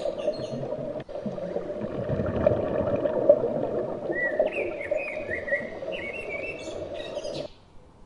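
Rainforest birds calling: runs of short, downward-sweeping calls over a dense, steady background din. The whole soundscape drops out briefly about a second in and cuts off abruptly near the end, leaving a much quieter background.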